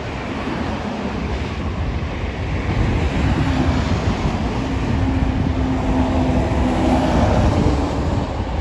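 Wind buffeting the microphone over a steady rumble of airport and road traffic, with a faint steady hum rising out of it for a few seconds in the middle.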